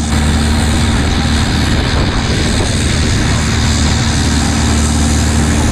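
Longtail boat's engine running at a steady speed under way, a constant low drone over the rush of water and wind.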